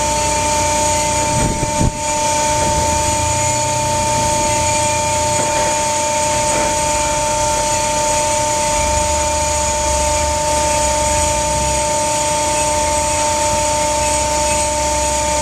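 Hydraulic winch system running with a steady high whine, its low hum rising and falling as the joystick-controlled valve is stroked, with one short knock about two seconds in.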